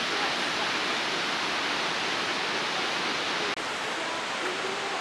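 Waterfall rushing, a steady dense hiss of falling water, with a brief click and dip about three and a half seconds in.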